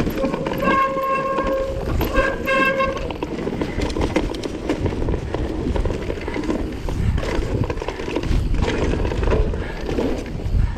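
Mountain bike disc brakes squealing twice, each a horn-like tone lasting under a second, over a steady rumble of riding down a rough trail.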